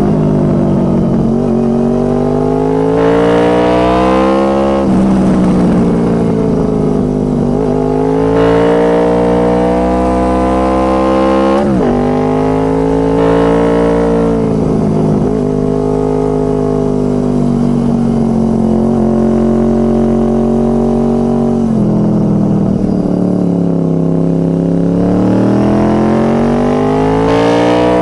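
Honda VFR800 Interceptor's V4 engine through a Two Brothers Racing exhaust, accelerating and backing off again and again. The pitch climbs steadily for a few seconds at a time, then drops quickly, with a few sharp dips and recoveries that sound like quick shifts.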